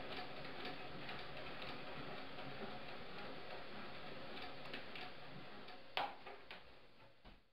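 Hand-cranked kinetic sculpture's mechanism ticking about twice a second as its wings flap, with one sharp louder click about six seconds in. The sound then fades away.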